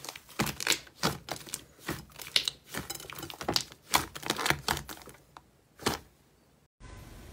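Thick, puffy slime squeezed and pressed by hand in a glass bowl gives off sharp crackling clicks and pops as air pockets in it burst, several a second at irregular spacing. The pops thin out after about five seconds, with a last one near six seconds.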